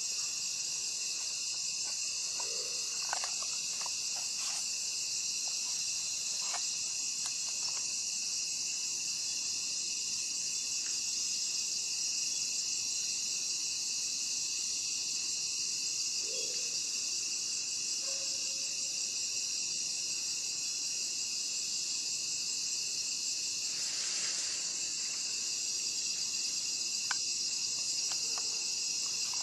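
Steady, high-pitched night insect chorus, crickets trilling without a break, with a few faint clicks here and there.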